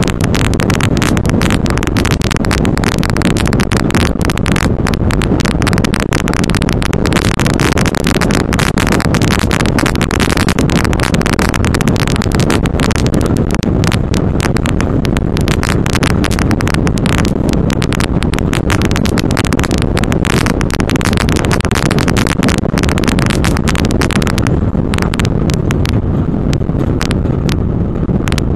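Off-road race vehicle driven fast over a rough desert dirt track, heard from inside the cab: a steady low rumble of engine and tyres with dense rattling and clatter from the body and gravel. The rattling thins out near the end.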